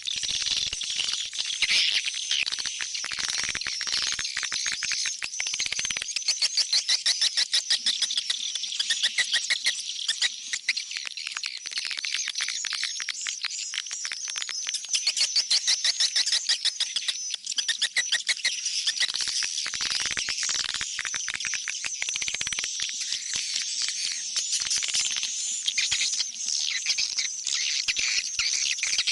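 Swiftlet calls: dense, rapid trains of high-pitched chirps and twittering clicks, going on throughout and rising in louder, evenly pulsed runs now and then. This is the kind of swiftlet call track played to lure swiftlets back to a swiftlet house.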